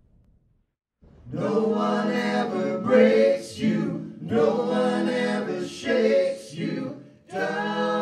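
Male voices singing together a capella, with no instruments heard, in short sung phrases with brief breaks between them. The singing starts about a second in, after near silence.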